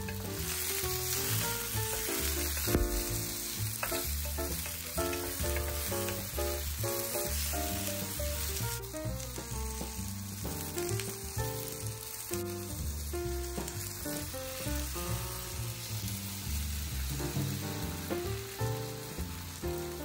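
Eggplant and red pepper slices sizzling in olive oil in a cast-iron skillet, turned now and then with a wooden spatula, with a sharp knock about three seconds in. Background music plays throughout.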